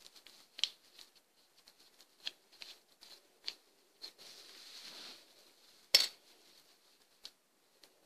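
Light clicks and taps of a small screwdriver and screws working on a small electronic device being taken apart, the last screw coming out. A soft scraping just after four seconds and a sharper click about six seconds in.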